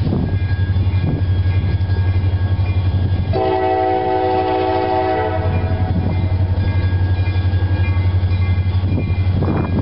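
Approaching diesel locomotive's air horn sounds one long chord of several notes, about two seconds long, starting about three seconds in, over a steady low rumble.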